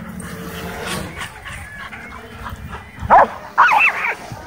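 Dogs barking in excitement, with a few loud barks about three seconds in.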